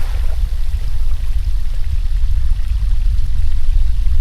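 Steady, loud low rumble with a faint hiss of flowing water, as of water rushing down a slide.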